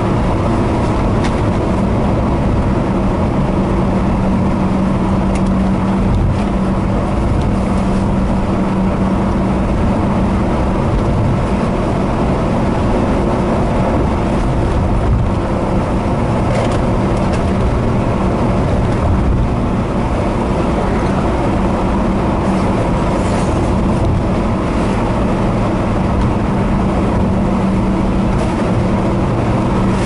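Moving car on a highway: a steady engine drone with a low hum over constant road noise.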